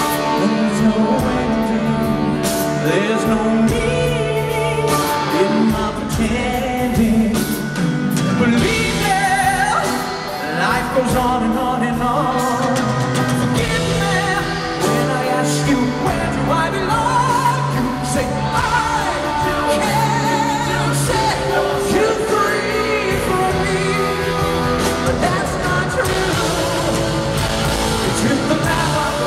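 Live rock band playing: a male lead vocal sung over electric guitar and drums, recorded from within the arena audience.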